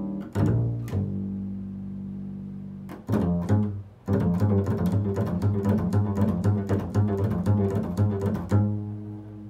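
Double bass played pizzicato: a few plucked notes, one left ringing for about two seconds, then a quick run of plucked notes from about four seconds in, ending on a note that rings and fades away.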